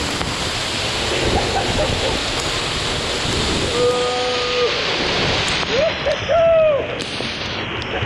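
Waterfall pouring down onto the man and the camera: a loud, steady rush of falling water and spray that turns duller after about five seconds. About four seconds in, a man gives a held shout, and two rising-and-falling whoops follow a couple of seconds later.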